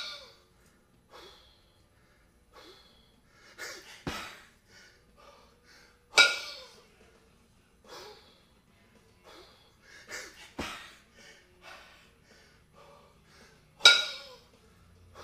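Two 22 kg kettlebells clanking with a short metallic ring as they drop back to the chest, three times about seven seconds apart, during a long set of double kettlebell jerks. Hard, heavy breathing between reps, with a duller thud twice in between.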